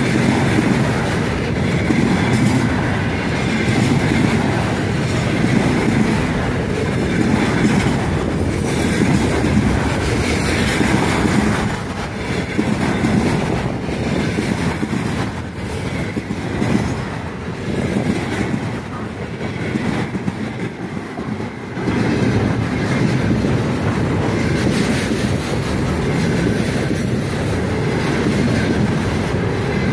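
Container flatcars of a long freight train rolling past close by: a steady low rumble of wheels on the rails. It goes quieter for several seconds around the middle, then picks up again.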